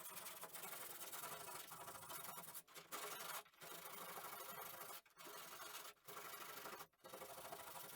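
Hand sanding with sandpaper: a steady rasping rub, broken by a short pause about once a second as the strokes change direction.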